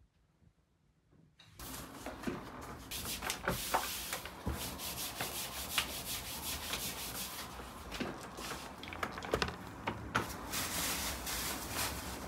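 Hands filling and pinching samsa dough and setting the pieces on a tray: rubbing and rustling with scattered soft taps and clicks, starting about a second and a half in.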